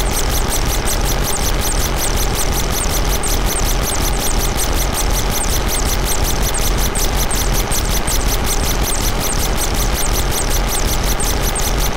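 Electronic noise from Noise Rumble noise synths run through a Korg Kaoss Pad 3. It is a loud, dense, steady wall of noise over a deep drone, with a rapid, evenly spaced train of short high chirps on top.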